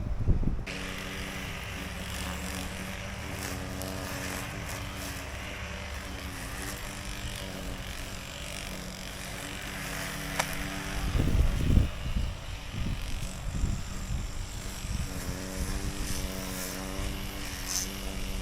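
Lawn mower engine running steadily, with wind gusting on the microphone about two-thirds of the way through.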